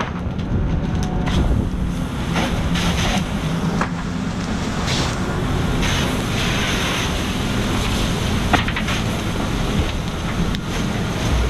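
Water spraying from a 1¾-inch fire hose nozzle onto a garage fire: a steady rushing hiss that swells now and then, over a steady low engine drone, with a few sharp knocks.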